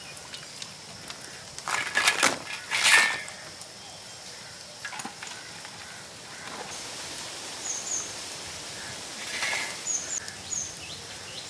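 Outdoor rural ambience with faint, short, high bird chirps from about seven seconds in, broken by three brief loud noisy bursts, about two, three and nine and a half seconds in.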